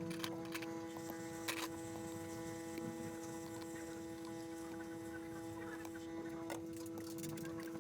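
A steady electrical hum with a few light clicks and taps over it.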